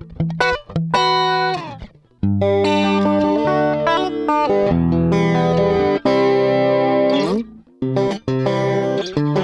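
Electric guitar played through a Strymon Deco pedal set for cassette tape saturation with double tracking. Short chord stabs come first, then held chords ringing for several seconds, then a brief pause and more short stabs.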